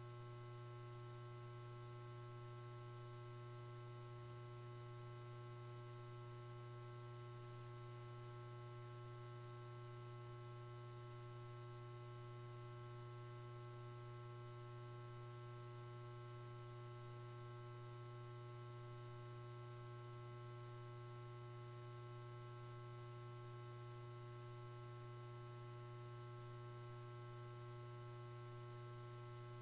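Near silence with a faint, steady hum that never changes; no cutting strokes or machine rhythm can be made out.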